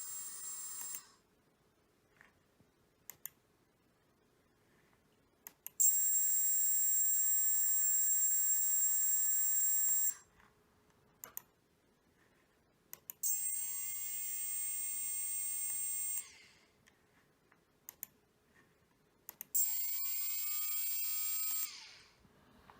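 Quadcopter brushless motors with props off, spun by their ESCs during output calibration, giving a high-pitched electric whine in several separate runs. One run ends about a second in, a longer one runs about four seconds, and two shorter ones each start with a rising pitch as the motors spin up, then cut off; faint clicks fall in the gaps between.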